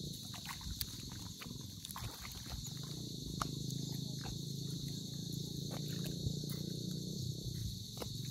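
Steady high-pitched chirring of insects, with scattered sharp clicks over a low steady rush.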